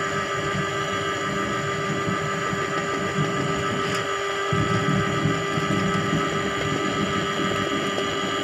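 Electric drain-cleaning machine running steadily with a constant hum, its spiral spring cable turning in a clogged drain pit to clear the blockage. Its low rumble eases briefly about halfway through, then comes back stronger.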